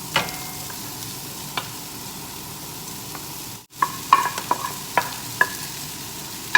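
Fried rice sizzling in a hot pan with prawns, garlic and green peas while a utensil stirs it. Sharp clinks of the utensil against the pan come near the start and in a quick run of several strikes about halfway through.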